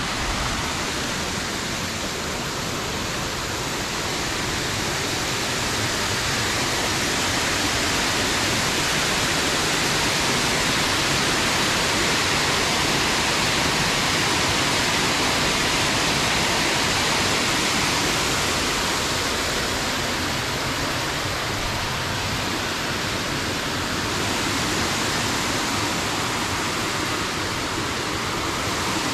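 Steady rush of water pouring over a small concrete dam spillway, louder for a while in the middle and easing a little later on.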